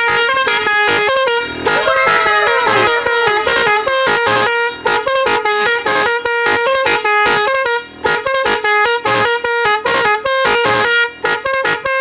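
Three-trumpet telolet air horn playing a rapid tune of short, loud honking notes, with a few notes that sweep up and down in pitch about two seconds in.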